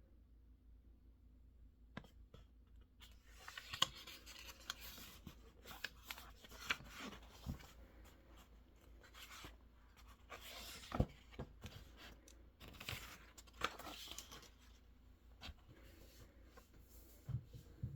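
Pen or pencil writing on paper, with irregular scratchy strokes and a few small taps and knocks on the desk, starting about two seconds in.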